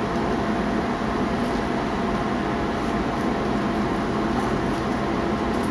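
A machine running steadily: an even whirring noise with a faint steady hum tone in it.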